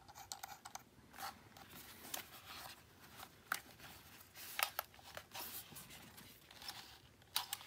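Faint handling noise from a plastic drone remote controller being turned over and fiddled with: scattered small clicks and light rustles, a little louder near the end.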